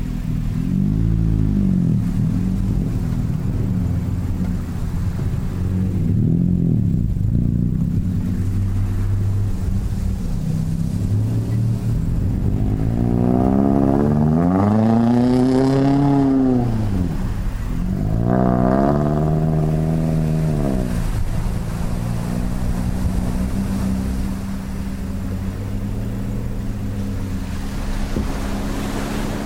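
Nissan Frontier Pro-4X pickup's 4.0-litre V6 pulling along a dirt trail, its pitch rising and falling as it accelerates and lets off. It gives two long, strong revs around the middle and shorter ones early on.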